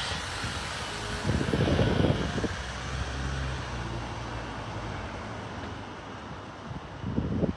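Police Ford Ranger pickup pulling away and driving off down the street, its engine note fading as it moves off. A louder low rumble comes about a second and a half in, and a short one just before the end.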